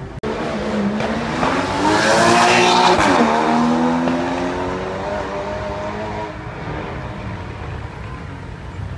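A high-revving sports car engine accelerating past: the note climbs as the car approaches and is loudest about two to three seconds in. Its pitch then drops sharply as it goes by, and it fades away.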